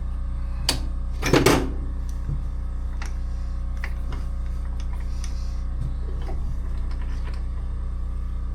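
Metal lathe running with a steady low hum, set up for boring a motorcycle cylinder. A sharp click comes just under a second in, and a louder metallic clatter about a second and a half in, with a few light ticks after.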